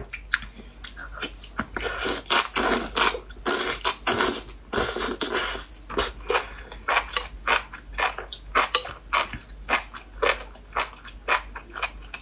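Close-miked slurping and wet chewing of enoki mushroom strands in spicy chili broth: a few long slurps early, then steady mouth smacks and clicks of chewing, several a second.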